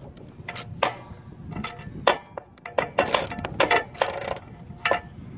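Ratchet wrench on a long extension clicking and clinking in irregular sharp metallic taps, some briefly ringing, as a 24 mm socket turns a plastic hydrostatic transaxle filter cartridge.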